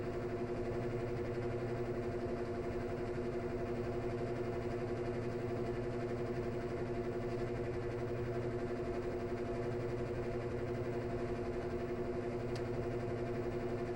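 Washing machine drain snoring: a steady humming tone with overtones over a low rumble that swells and eases every few seconds.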